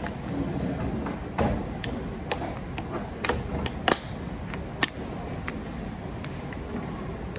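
Thin plastic water bottle crackling and clicking as it is drunk from and handled: a string of irregular sharp cracks over a steady low background noise.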